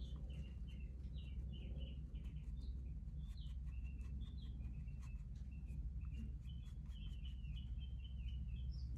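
A small bird chirping over and over, short high chirps several a second, over a steady low hum.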